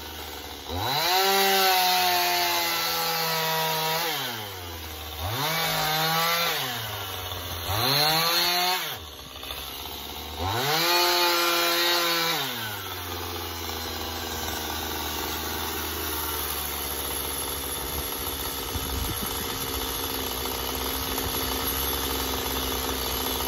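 Stihl MS 271 two-stroke chainsaw revving up and cutting into a wooden log in four bursts of one to three seconds, dropping back to idle between them. After the last cut, about halfway through, it settles into a steady idle.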